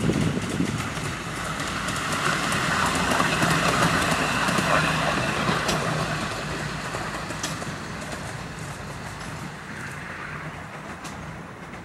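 Miniature-railway locomotive and loaded ballast wagon running along the track and away, a steady rumble of wheels on rail with a low hum. It is loudest a few seconds in, then fades as it draws off, with a few sharp clicks along the way.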